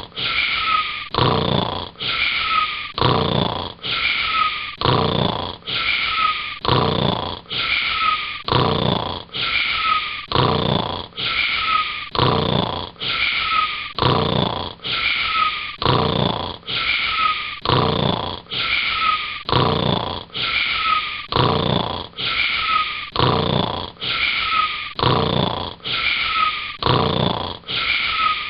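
Cartoon-style snoring repeating in an even loop, about one snore a second, each with a high tone that dips slightly.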